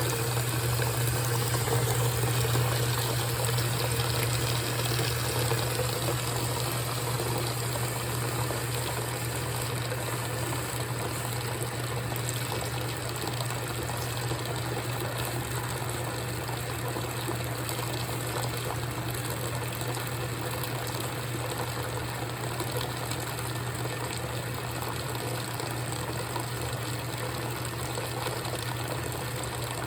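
GE top-load washing machine running with its lid open: water pouring and sloshing in the drum over a steady low hum.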